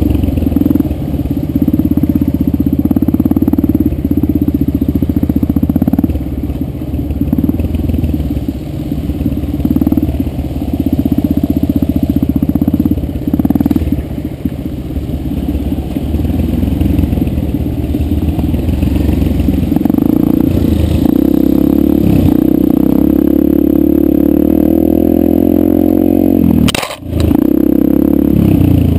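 Yamaha 125 dirt bike engine running up close under constantly changing throttle on a rough trail. Near the end there is a sharp knock and a brief dip in the sound before the engine picks up again.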